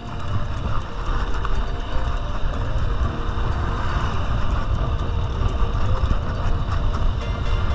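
Wind rushing over the microphone and road rumble from a road bike riding along a concrete highway. Under it is a faint steady engine hum from motor traffic.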